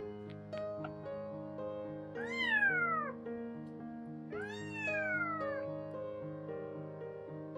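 A kitten meowing twice, each call rising briefly and then falling in pitch, over background piano music.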